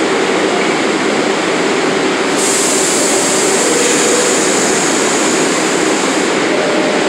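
R62A subway train standing at the platform with its doors open, a steady rushing hum of its running equipment. A high hiss comes in suddenly about two and a half seconds in and fades out about four seconds later.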